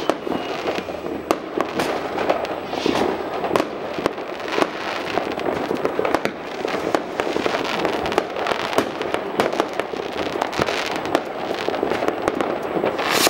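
New Year fireworks going off: a continuous stream of crackling pops and sharp bangs from many shells and firecrackers at once, with a loud bang near the end.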